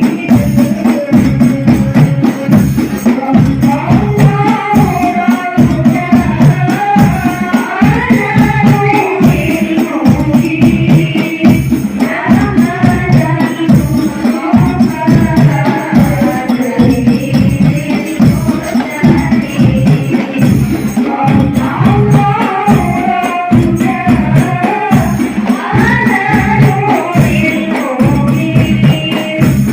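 Hadroh ensemble playing through a sound system: rebana frame drums and jingles beat a fast, steady rhythm under a sung devotional melody.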